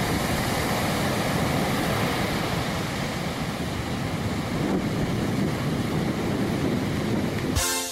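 Ocean surf breaking: a steady rush of crashing waves and whitewater, with no let-up.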